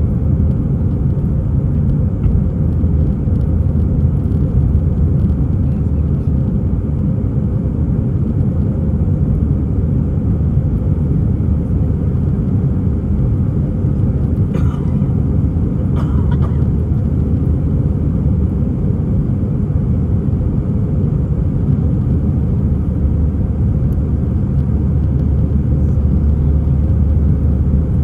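Steady low rumble inside the cabin of an Airbus A319 seated behind the wing, from its engines and airframe, holding level with no rise. Two brief faint higher sounds come about halfway through.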